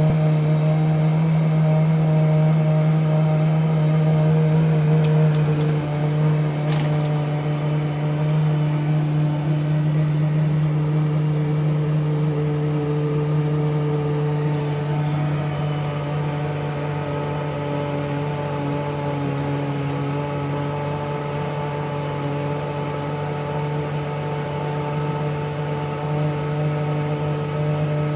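Takagi TK-3 tankless gas water heater running with a loud, steady droning hum made of several overlaid tones; this is the operating noise its owner is complaining about. A few faint clicks come about six seconds in.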